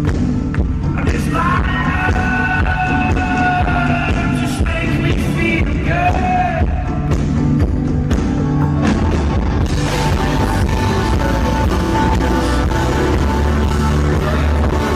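Rock band playing live in a large arena, with electric guitar, bass, drums and piano, and sung lines in the first half.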